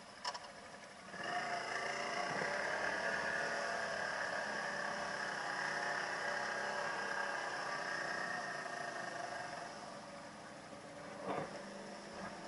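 ATV engine running under throttle as the quad drives through mud. It picks up about a second in, holds steady for several seconds, then eases off. A couple of short knocks from the machine bumping over the rough ground.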